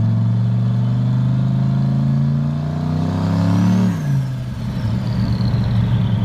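Turbocharged truck engine accelerating, its pitch rising along with a high turbo whistle, then the throttle is lifted about four seconds in: the engine note drops suddenly and the turbo whine winds down slowly.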